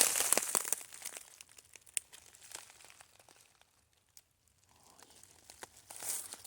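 Dry leaves and brush rustling and crunching underfoot as someone walks, a crackle of small snaps. It dies away to near silence around the middle and picks up again near the end.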